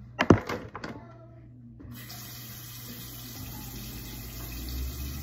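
A sharp knock and a few clicks in the first second, then from about two seconds in a bathroom tap runs steadily into the sink while a face is washed, over a low steady hum.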